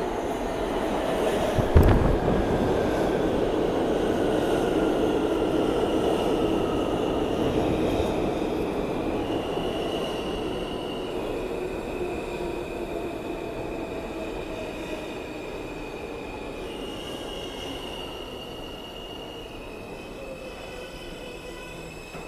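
R160 subway train pulling into an underground station and slowing, with a loud clunk about two seconds in. A high whine jumps between pitches in steps while a lower tone falls, and the rumble fades as the train slows.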